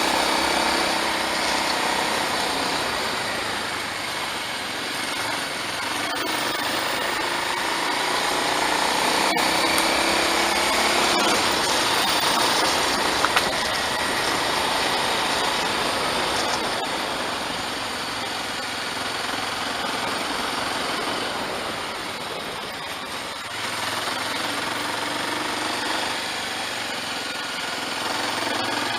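Motorcycle engine running, its pitch rising and falling now and then, under a steady rushing noise.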